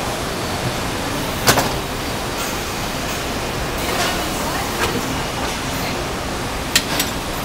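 Steady din of engine assembly-line machinery, with a sharp clack about a second and a half in and two more close together near the end.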